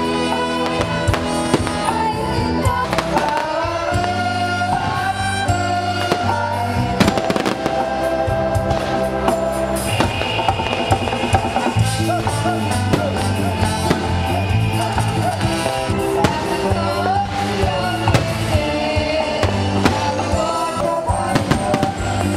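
Music with a held bass line plays throughout, with the bangs and crackles of exploding fireworks mixed in, thickest from about a third of the way in.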